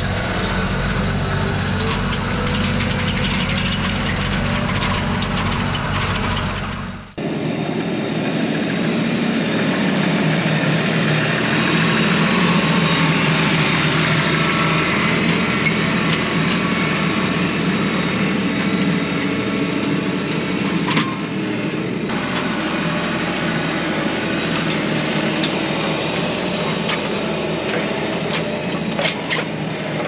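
Kioti NS6010 tractor's diesel engine running steadily. About seven seconds in, the sound changes abruptly: the deep low hum drops away, leaving a steady, noisier running sound.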